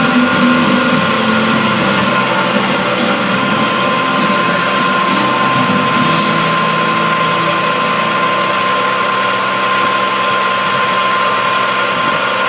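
A CNC milling machine cutting aluminium: a steady mix of spindle whine and cutting noise, with a constant higher tone that joins about four seconds in.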